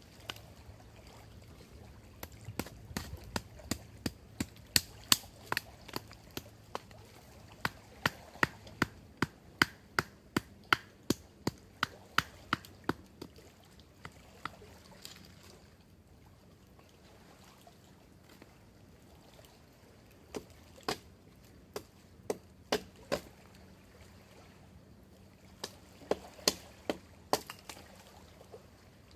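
Wood being chopped or split with a knife: sharp knocks, about two a second in a long run, then a few scattered strokes and a short burst near the end.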